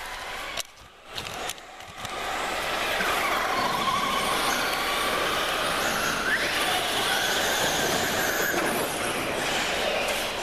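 Radio-controlled model cars running on a dirt track, their motors whining and rising and falling in pitch as they speed up and slow down. Quieter for the first two seconds, then steady.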